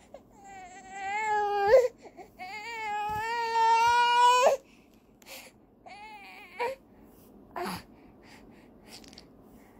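Four-month-old baby crying: two long wails in the first half, a shorter cry about six seconds in, then only small whimpers. It is the fussing of a baby tired and upset from tummy time.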